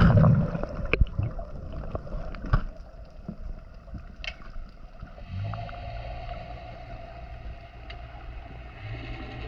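Underwater sound through a diving camera: a loud rush of water at the start, a few sharp clicks, then from about five seconds in a steady low hum.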